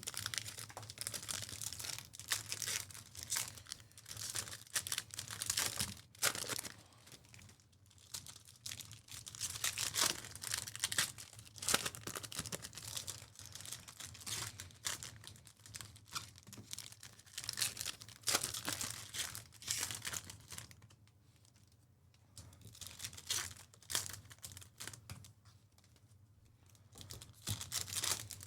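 Trading card pack wrappers crinkling and tearing as packs are handled and opened, in a run of short rustles with quieter lulls past the middle.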